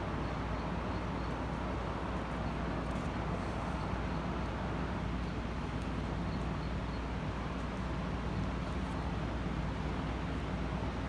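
A steady low hum with a noise behind it, even throughout, and a few faint ticks.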